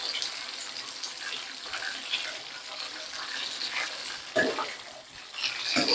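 Masala-coated fish frying in hot oil in a pan: a steady sizzle with crackling, and two louder moments near the end.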